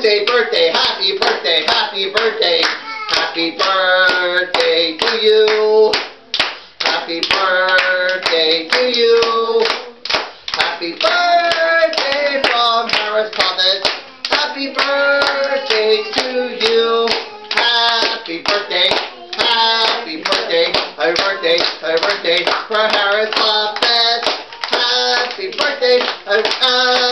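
A wordless tune of held and shifting notes, with steady rhythmic hand clapping along to it.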